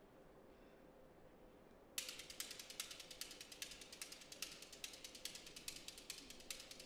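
Near silence, then about two seconds in a hand-held gourd percussion instrument starts a quick, dry rattle of many fast clicks, played alone and soft.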